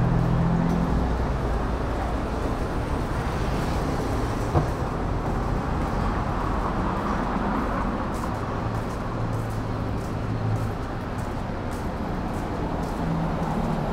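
Road traffic running steadily beside the pavement, with car engines humming as they pass, louder at the start and again about eight to ten seconds in. One short sharp click about four and a half seconds in.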